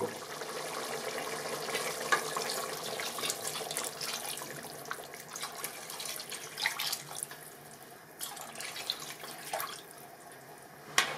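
Water poured into an aluminium pressure cooker of hot mutton curry, a steady splashing pour that thins out over the last few seconds. A single sharp click sounds near the end.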